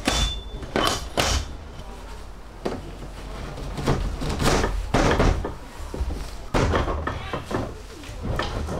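A series of knocks and thuds, about a dozen scattered over several seconds, over a steady low rumble.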